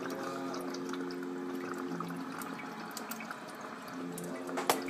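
Water bubbling in a tall glass beaker bong as smoke is drawn through it, a steady gurgle with a sharp click near the end.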